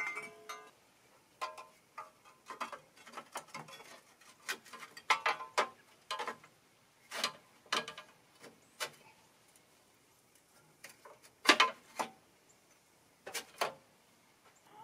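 Hand tools and metal parts clicking and clinking in a Massey Ferguson 255 tractor's engine bay during reassembly: an irregular string of sharp taps, a few ringing briefly, with the loudest knock about two-thirds of the way through.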